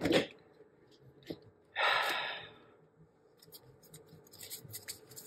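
A deck of cards being handled and starting to shuffle: quick, light flicks of card stock that grow busier near the end. Before that, about two seconds in, there is one short breathy whoosh.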